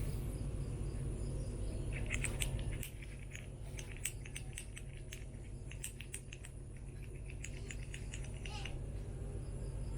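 A run of small, irregular clicks and scratches over a low steady hum that drops away about three seconds in.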